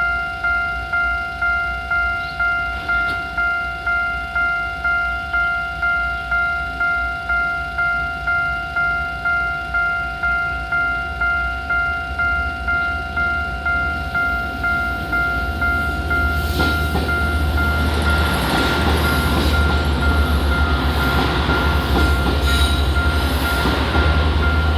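A railway level-crossing warning alarm with its unusual tone rings in steady pulses, a little under two a second. About sixteen seconds in, a train starts passing through the crossing, adding rumble and rail noise under the alarm, which keeps sounding.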